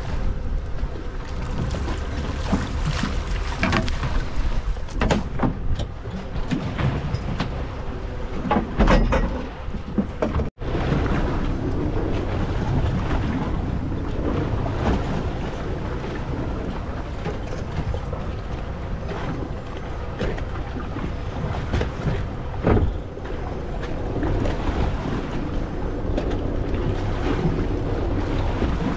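Wind buffeting the microphone and sea water slapping against the hull of a small fishing boat, with a faint steady hum underneath and scattered short knocks in the first ten seconds. The sound cuts out for an instant about ten and a half seconds in.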